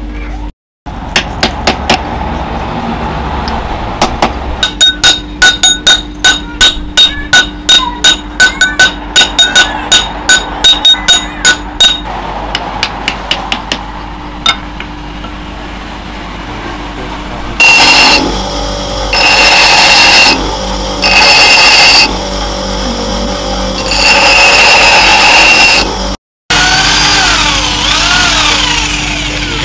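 Hammer strikes on a steel anvil, about two a second, each with a short metallic ring. Then a power tool runs loud in four short bursts. Near the end an electric drill spins a wooden handle for sanding, its pitch wavering.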